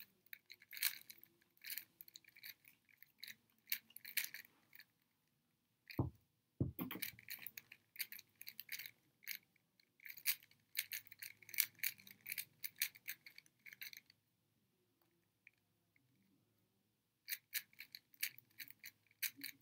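Plastic 3x3 Rubik's cube being turned fast in a speed solve: rapid clicking and clacking of the layers in quick runs, with two duller knocks about six seconds in and a short pause of a few seconds near the end. The cube is an old one with a broken piece.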